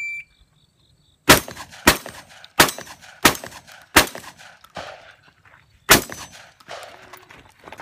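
The shot timer's start beep ends right at the start, then a SIG Sauer P320 pistol fires six shots. The first five come about two-thirds of a second apart, starting about a second and a half in, and the sixth follows after a pause of nearly two seconds. Fainter clanks sound between and after the shots.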